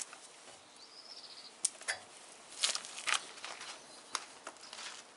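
A few short, light clicks and knocks spread over several seconds, from tools and parts being handled and set down, with a faint high chirp about a second in.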